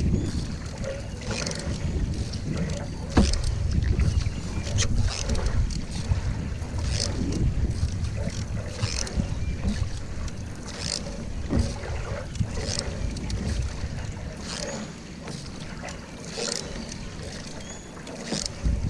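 Canoe paddle strokes in the water, a short splash about every two seconds, over a steady rumble of wind on the microphone.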